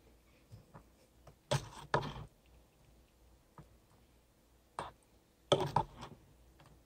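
Metal spoon knocking and scraping against aluminium camping pots and a bowl while chicken and vegetables are served onto rice: a few sharp clinks, a pair about a second and a half in and a quick cluster near the end.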